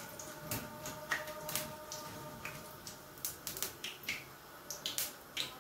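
Wheat-flour vadas frying in a kadai of hot oil, crackling with irregular sharp pops; the flame has been turned up so the oil boils hard, which drives the oil out of the vadas before they are lifted out.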